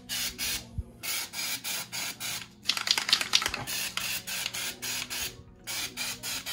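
Aerosol can of orange-peel wall texture spraying onto drywall in rapid short hissing spurts, about five a second, with a denser, louder spatter about three seconds in.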